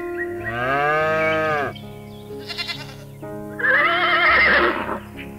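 Farm animals bleating over background music: a long call that rises then falls in pitch, short rapid pulsed bleats, then a loud wavering bleat about three and a half seconds in.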